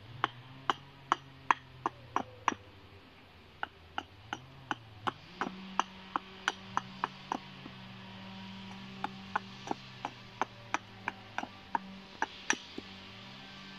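Small axe chopping down the end of a hazel peg against a log chopping block: a steady run of sharp wooden chops, about two to three a second, with a short pause about three seconds in.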